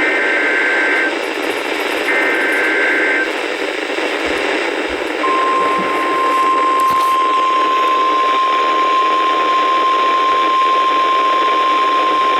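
NOAA Weather Radio Emergency Alert System signal over a hissy radio channel: the last two of three screechy SAME digital header bursts, each about a second long and a second apart. About five seconds in, the steady single-pitch 1050 Hz warning alarm tone starts and holds. Together they announce a High Wind Warning.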